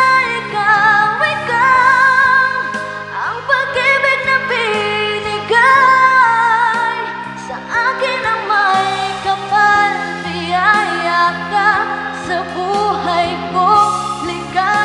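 Music: a sung melody with vibrato and no clear words, over a backing track of held chords.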